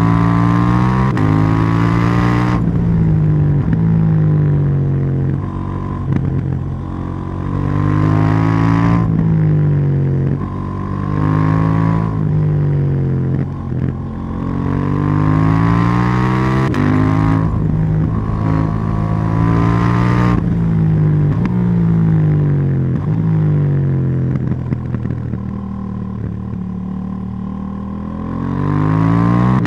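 KTM 790 Duke's parallel-twin engine running on the move, its pitch climbing under throttle and falling back several times, with a few sudden drops in pitch.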